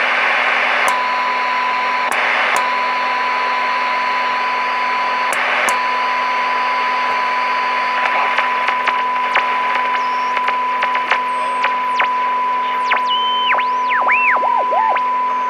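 Marconi 2004 seven-transistor radio's speaker giving a steady 1 kHz test tone, fed from a signal generator at the 455 kHz intermediate frequency, over hiss and a low hum. The tone cuts out into bursts of static three times in the first few seconds. In the second half, clicks and short gliding whistles break in.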